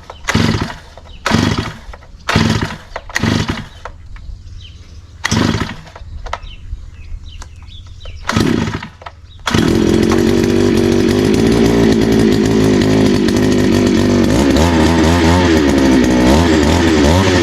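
Two-stroke engine of a gas-powered post hole auger being pull-started: several short pulls of the recoil starter, then it catches about nine and a half seconds in and runs on steadily, its pitch wavering near the end.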